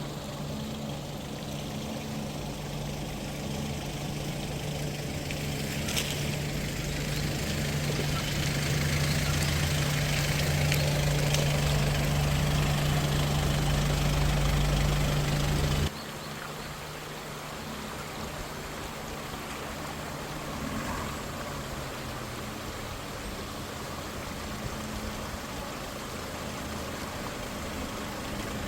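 A vehicle engine running steadily over a constant hiss. The engine grows louder over the first several seconds, then drops suddenly to a quieter level a little past halfway and keeps running.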